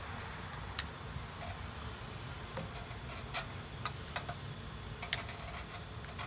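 Irregular sharp clicks and taps from handling a propane insect fogger, over a steady low background rumble.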